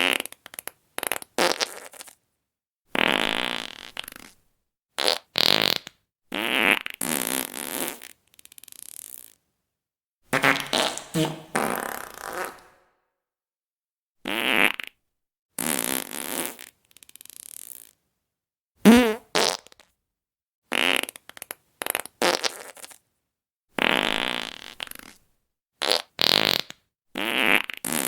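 Fart sound effects played one after another: about twenty separate farts, short and long, some with a wavering pitch, with dead silence between them.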